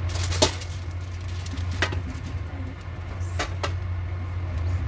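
A steady low hum with a few light clicks and taps: a cluster about half a second in, one near two seconds, and two close together around three and a half seconds.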